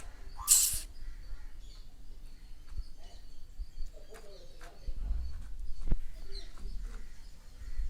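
Birds chirping and a dove or pigeon cooing, with scattered small clicks and a brief loud hiss-like burst about half a second in.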